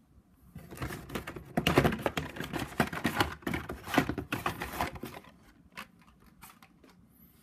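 Blister-packed Hot Wheels die-cast cars being handled: dense crackling and clicking of plastic blisters and card backs for about four seconds, then a few scattered clicks.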